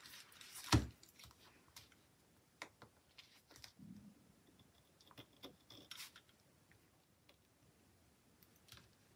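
Paper crafting at a table: a single knock about a second in as something is set down, then scattered light clicks, taps and short paper rustles as a sticker book and small tools are handled.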